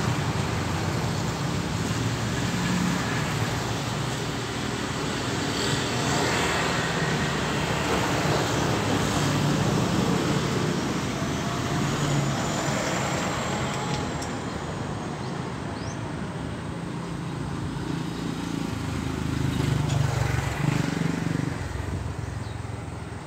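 Road traffic passing: engine hum and tyre noise of vehicles going by, swelling and fading, loudest about twenty seconds in.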